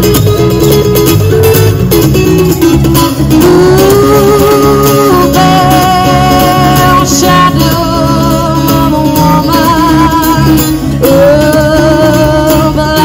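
Live music: a singer performing with guitar accompaniment, holding long notes with a wavering vibrato over steady strumming.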